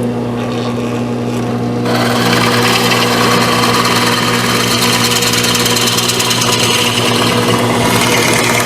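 Electric drill running, then boring the 1-3/8 inch dowel hole through the toolbox end board: a steady motor hum, with the louder rasp of the bit cutting into wood from about two seconds in.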